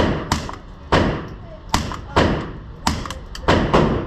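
Suppressed Sig P322 .22LR pistol firing a quick string of about eight shots, each a sharp crack with a short ringing tail, spaced unevenly a fraction of a second apart.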